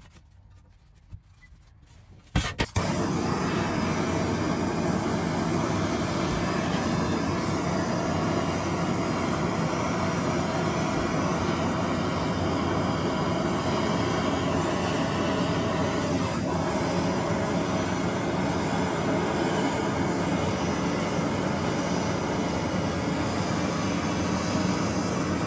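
Handheld gas torch lit with a couple of sharp clicks about two and a half seconds in, then burning with a steady rushing hiss as its flame dries the bare cast iron griddle ahead of oiling and seasoning.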